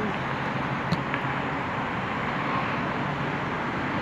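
Steady outdoor background rush with no pitched sound in it, and one faint click about a second in.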